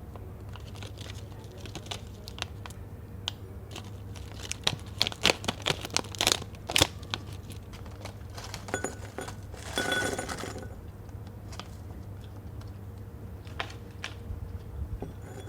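Snack packaging being handled: crinkling with a run of sharp crackles about five seconds in, and a short noisy rustle about ten seconds in, as when a wrapper is torn open.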